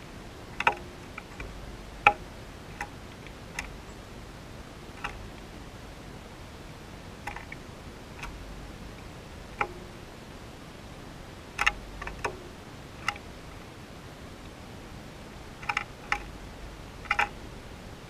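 A sparrow pecking seed off the hard rim of a bird bath: short, sharp ticks at irregular intervals, sometimes two or three in quick succession, over a faint steady hiss.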